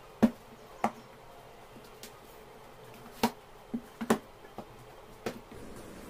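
Books and notebooks handled and set down on a shelf: about eight short, sharp taps and knocks at uneven intervals.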